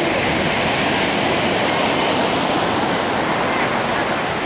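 Steady rush of sea waves washing on the shore.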